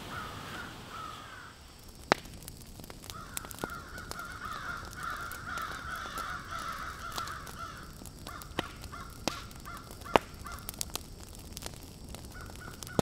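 Crows cawing repeatedly in the background, a harsh, rough calling that goes on for several seconds and then comes back in shorter bits. A few sharp clicks cut through, the loudest about two seconds in and about ten seconds in.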